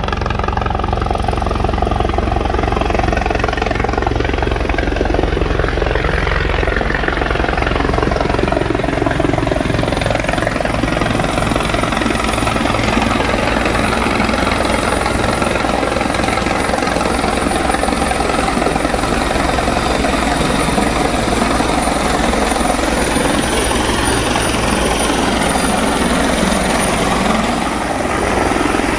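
Helicopter flying low overhead and descending to land, its rotor blades beating rapidly and steadily over the engine noise, with a thin high whine running above.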